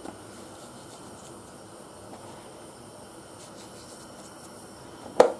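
Steady low hiss from a pot of pasta water heating on a gas hob, with one sharp knock about five seconds in.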